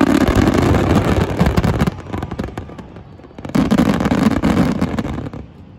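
Aerial fireworks shells bursting in a dense, rapid barrage of loud bangs and cracks. It comes in two waves: the first starts suddenly and dies down about two seconds in, and the second comes in about three and a half seconds in and fades near the end.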